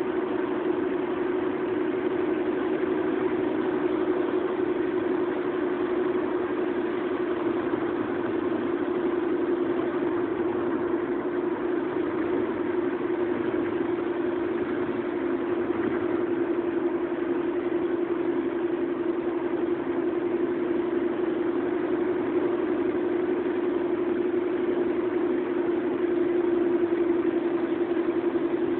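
Car cabin noise while driving at steady speed: engine and tyre-on-road drone with an unchanging hum, heard from inside the car.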